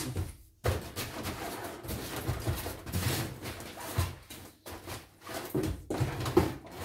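Packaging being handled: plastic wrapping and cardboard rustling and crinkling, with a few light knocks against the cardboard and styrofoam packing.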